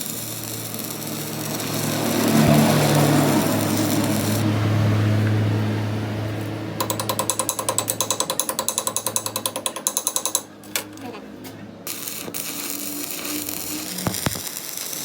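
Workshop machinery and tools at work on a truck pinion: a steady machine noise with a low hum, then a rapid even rattle of about nine beats a second for some three seconds that stops abruptly, followed by a few scattered knocks.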